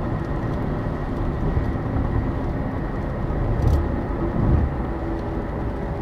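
Steady car noise mixed with gusty wind rushing past, swelling louder twice near the middle.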